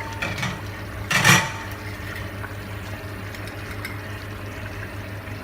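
Chicken curry simmering in a pot on a gas stove, a steady soft bubbling with a low hum, and one brief louder rustle about a second in.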